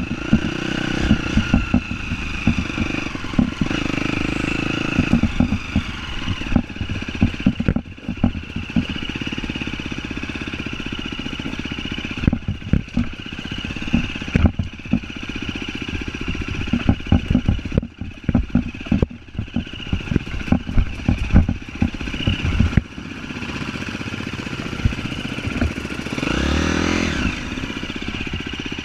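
Off-road vehicle engine running over a rough, rutted trail, with frequent knocks and rattles from the bumps. About 26 seconds in the engine revs up in a rising whine, then settles into steadier running near the end.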